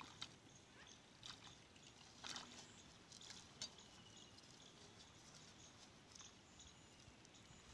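Near silence, broken by a few faint rustles and soft knocks in the first half.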